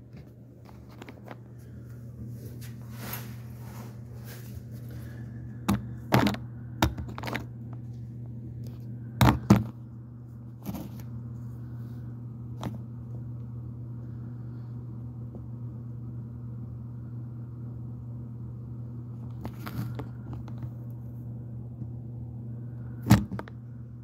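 Scattered sharp knocks and scrapes from working under a sink, a few close together in the middle and one loud knock near the end, over a steady low hum.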